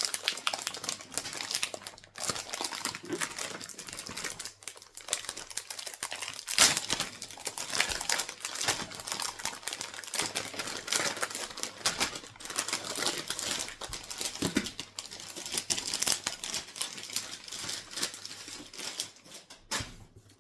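Foil wrapper of a Topps football card pack crinkling and tearing as it is pulled open by hand, with irregular crackles and the flick and rustle of the cards being handled.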